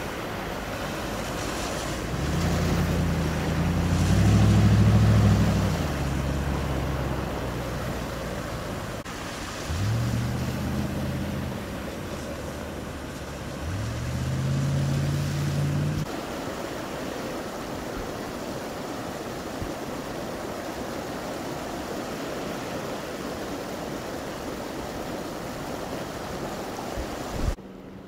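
Cars driving through floodwater on a road, tyres throwing spray, over a steady rushing hiss of water and wind. Three vehicle engines pass, the second and third rising in pitch as they speed up.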